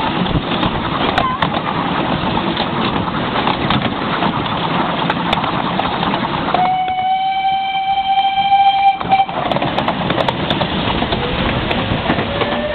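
Miniature railway locomotive's whistle blowing one long steady note for about two and a half seconds in the middle, over the steady rumble and rattle of the train running along the track.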